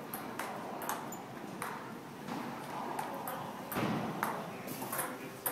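Table-tennis ball being played back and forth: a string of short, sharp clicks at irregular spacing as it strikes the paddles and bounces off the tables.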